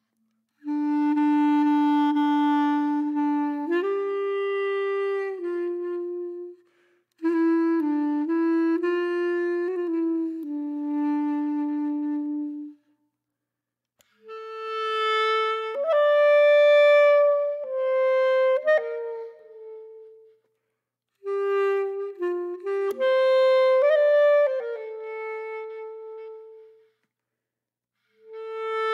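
Background music: a slow solo melody on a reed wind instrument, played as held notes in four phrases of about five to six seconds, each followed by a second or so of silence.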